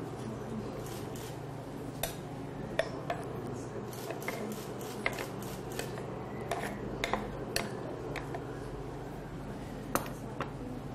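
Light, irregular clinks and taps of a metal ladle against a wooden bowl and a steel pan as diced cheese is pushed out into the risotto, about a dozen over several seconds, with a low steady hum beneath.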